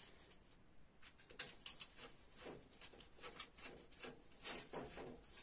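Faint, irregular clicking and scraping of small metal parts (nuts, bolts, a screwdriver) against an enamel pot as it is being bolted onto an angle grinder.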